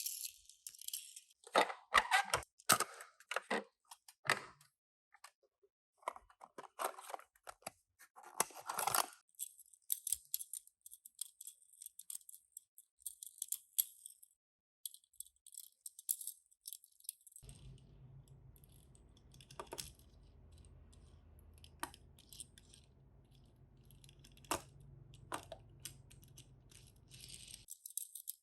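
Toy packaging crinkling, with small sharp clicks and clacks of die-cast toy cars and plastic being handled. In the second half the crinkling stops and a low steady hum runs with a few sharp clicks over it.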